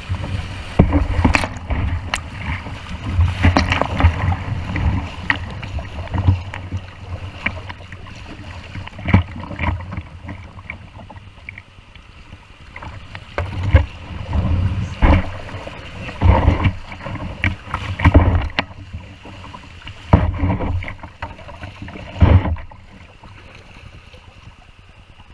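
Kayak paddle strokes splashing and river water rushing over a plastic whitewater kayak running shallow rapids, with frequent irregular splashes and knocks. It calms near the end.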